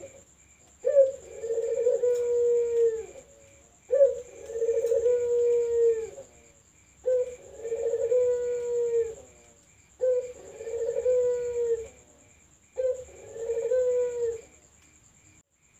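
Puter (domesticated ringed turtle dove) cooing: five drawn-out coos, each about two seconds long, repeating about every three seconds. Each coo starts sharply and holds a steady pitch before dropping slightly at the end.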